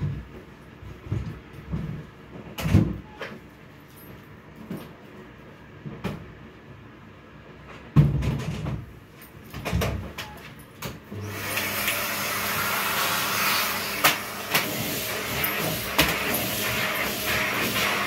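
Scattered knocks and bumps as a vacuum cleaner and its hose are handled, then the vacuum cleaner's motor switches on about eleven seconds in and runs steadily with a low hum under its suction noise.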